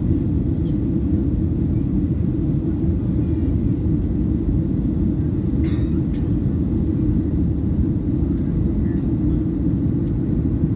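Steady low rumble of engine and airflow noise inside a jet airliner's cabin, heard during the descent to land. A faint click sounds about halfway through.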